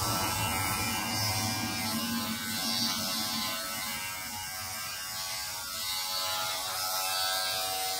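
Electric hair clippers running with a steady buzz as they shave a man's head close.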